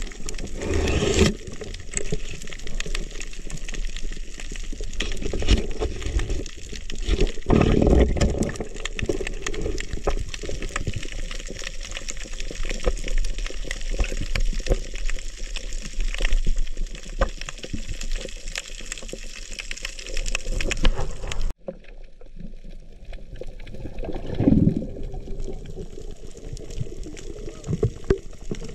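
Underwater sound picked up by a diving camera: a steady rush of water with a fine crackle of clicks throughout, and louder surges about a second in, around eight seconds and near the end. The sound drops out suddenly for a moment about three quarters of the way through.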